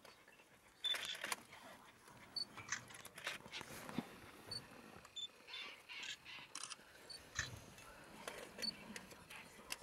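Faint scattered clicks and short rustles of handling and camera noise, with a few brief high chirps.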